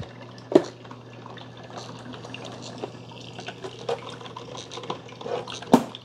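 Drip coffee makers brewing: hot water gurgling and dripping through the filter basket over a steady low hum, with two sharp clicks, one about half a second in and one near the end.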